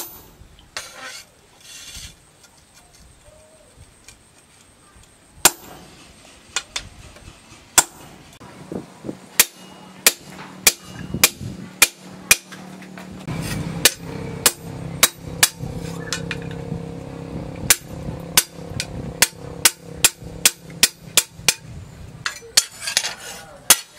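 Hand hammer striking steel on a post anvil, driving a punch held in tongs through the red-hot plough-disc blade steel to make holes. The blows are scattered at first, then come steadily about twice a second from about nine seconds in, over a steady low hum.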